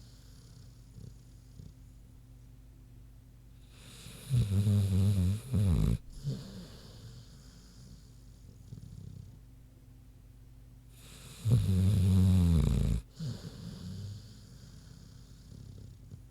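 American Bulldog snoring in sleep: two loud snores, each a second or two long and about seven seconds apart, with quieter breathing between.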